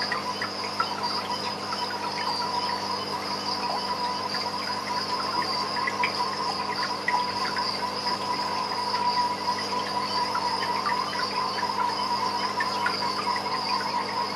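A steady chorus of chirping insects: a constant high trill with many short chirps scattered over it.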